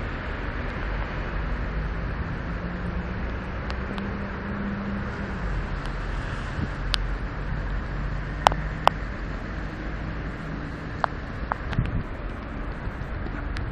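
Wet city street traffic noise, steady throughout, with a vehicle engine humming past in the first half. A handful of sharp ticks come about halfway through.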